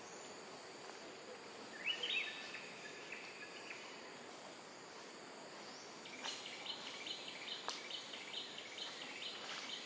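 Outdoor ambience: a steady high insect drone, with a short bird call about two seconds in. From about six seconds there is a fast repeated chirping, three to four a second, and one sharp click near the end.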